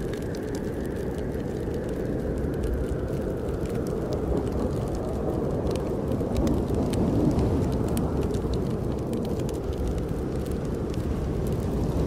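Snowstorm wind blowing in a low, steady rush that swells now and then, with a wood fire crackling in small, sharp snaps over it.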